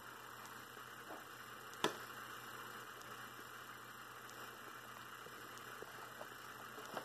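Quiet room hiss broken by one sharp click about two seconds in and a few faint ticks.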